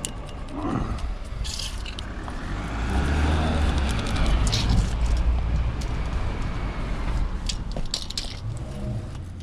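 A road vehicle passing: a low rumble builds to a peak mid-way and then fades. A few sharp knocks are heard along with it.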